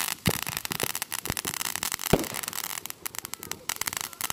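Ground fountain firework spraying sparks with a dense, fast crackle of small pops, with a few louder pops standing out.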